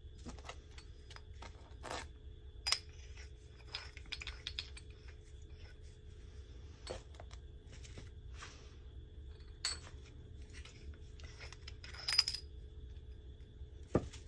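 Metal handle sections and tool heads of a Suprock folding survival shovel clicking, clinking and rubbing against each other and the nylon carry bag as they are handled and fitted together, in irregular small taps with a few louder clacks.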